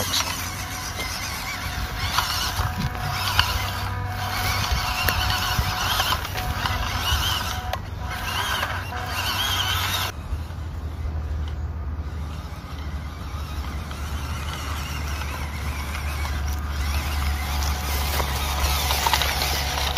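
Small RC crawler's 180 motor and gearbox whining as the truck creeps through grass, the pitch rising and falling a few times with the throttle, over steady rustling noise.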